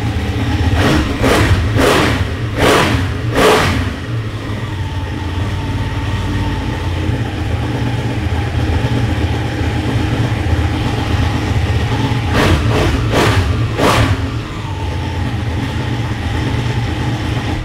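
Ducati Panigale 1199's Superquadro V-twin on its stock exhaust idling, very loud, with five quick throttle blips in the first few seconds and four more about twelve seconds in.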